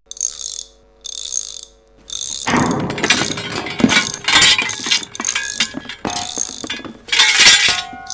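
Cartoon mechanical sound effects. First come three short bursts of tool-like mechanical noise over a faint steady hum. Then, from about two and a half seconds in, a dense run of metallic clattering and rattling as the giant metal logo buckles and warps.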